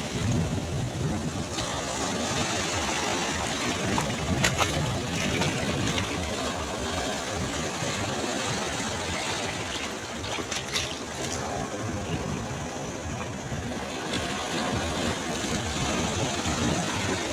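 Sea waves breaking and washing onto the shore: a continuous rumble and hiss of surf, with a few brief crackles.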